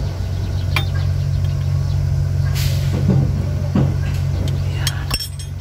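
A vehicle engine idling with a steady low hum, under light metallic clicks of spanners and a screwdriver on the engine's rocker arms as the valves are adjusted. A short air hiss comes about two and a half seconds in.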